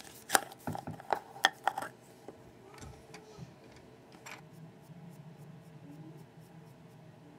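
Several sharp plastic clicks and knocks from a small screw-lid jar of silver metallic craft paint being opened and handled, most of them in the first two seconds, with one more a little after four seconds, then only faint light ticks.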